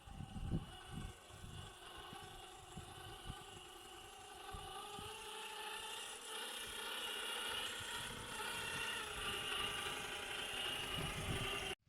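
Electric motor and gear drivetrain of a 1/7-scale Rlaarlo JK07PRO RC trail truck whining as it drives, the whine slowly rising in pitch and getting louder, with low knocks and crunches from the tyres on rough ground. The sound cuts off abruptly near the end.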